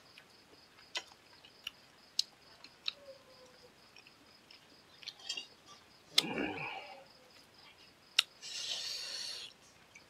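Close-miked eating sounds from a man eating rice and curry by hand: sharp mouth clicks and smacks every second or so, a louder chewing burst about six seconds in, and a hissing burst lasting about a second near the end.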